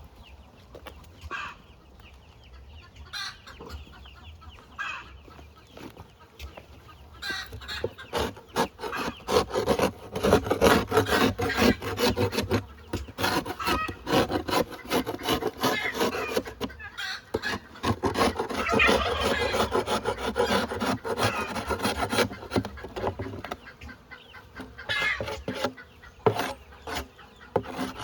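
Chickens clucking, with wooden rubbing and scraping mixed in. It is sparser at first and grows much busier about a third of the way in.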